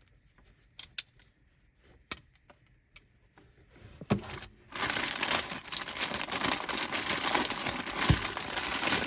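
A few sharp clicks and taps of metal handle hardware being handled, then about five seconds of continuous crinkling of plastic packaging as a door handle is unwrapped.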